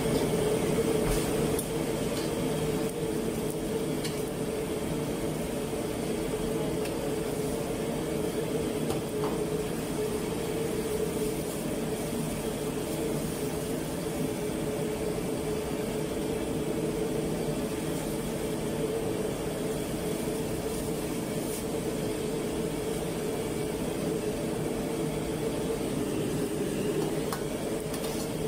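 Steady roar of a commercial wok stove's gas burner, with water boiling hard in the wok. A few faint clinks of the metal ladle and strainer come through over it.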